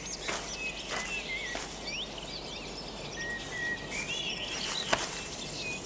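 Tropical forest ambience: many small birds chirping and twittering in short, wavering calls over a steady background hiss, with a few short crackles.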